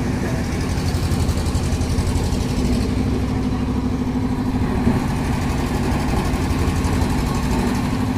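An engine running steadily at a constant speed, a low, even hum with no change in pitch.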